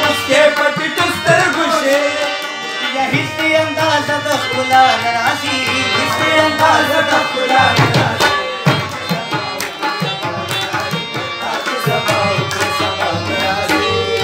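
Live Pashto folk music on tabla, harmonium and rabab, with a man singing over the harmonium and deep drum strokes from the tabla.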